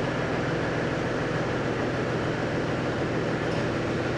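2002 Chevrolet Trailblazer's 4.2-litre straight-six engine running at a steady, raised idle shortly after start-up, before the idle drops back down.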